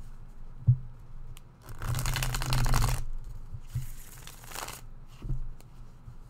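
A tarot deck being riffle-shuffled: two rapid purring riffles of the cards, the first about a second and a half in and the second, shorter, about four seconds in, with light taps of the deck on the table around them.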